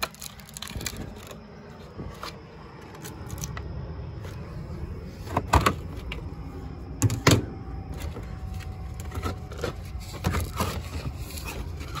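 Hands handling a plastic line-set cover on vinyl siding: light scrapes and clicks, with two sharper knocks about five and a half and seven seconds in, over a low steady rumble.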